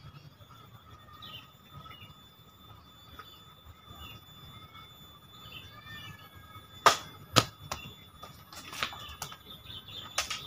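A katana slashing diagonally through a banana tree trunk about seven seconds in: one sharp chop, then half a second later a duller thud, and a few lighter knocks near the end. Birds chirp faintly before the cut.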